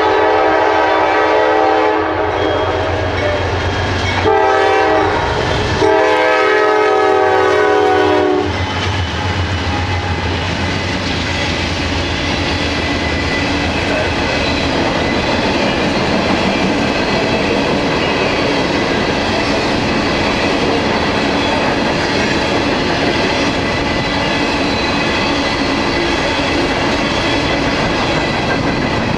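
Diesel locomotive air horn sounding for a grade crossing: the end of one blast, a short blast, then a long blast ending about eight seconds in. The GE Dash 9 locomotives then pass, followed by a steady rumble and clickety-clack of coal hopper cars rolling by.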